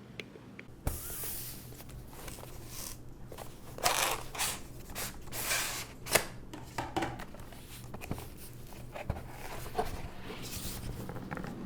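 Packaging of a box of Akko Rosewood mechanical keyboard switches being handled and opened: irregular rustling and scraping with sharp clicks, busiest in the middle.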